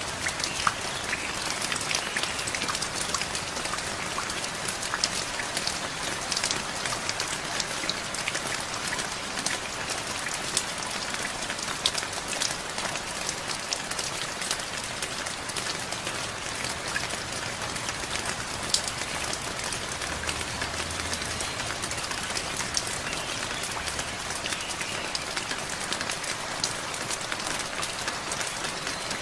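Steady rain falling, with many individual drops tapping sharply on a nearby surface.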